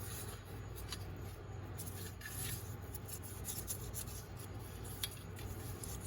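Faint rubbing as assembly lube is spread by hand around the low/reverse piston bore inside a 4L60E transmission case, with a few small ticks, over a steady low hum.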